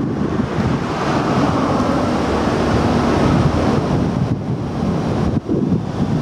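Sanyo 280-class R22 package air conditioner running in heating mode: a loud, steady rush of fan-blown air.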